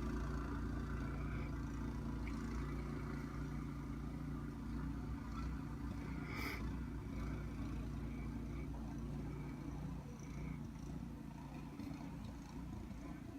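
Snowblower engine running steadily, slowly growing fainter. A single sharp click sounds about six and a half seconds in.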